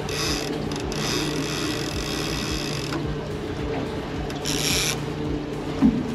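Multiplier fishing reel on a trolling rod being cranked, whirring for about three seconds and again briefly a second and a half later, as a hooked salmon is reeled in. A boat engine hums steadily underneath, and a short knock comes near the end.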